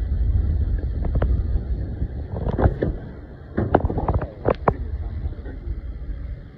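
Wind buffeting the microphone as a BMX bike rolls over concrete: a low rumble that eases about halfway through. Scattered sharp clicks and knocks from the bike come in the middle.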